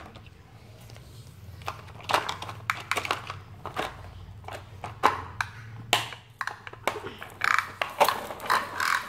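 Hard plastic toy truck and toy animal figures being handled: an irregular string of light clicks, knocks and rattles as the pieces go into the caged back and the truck is moved about.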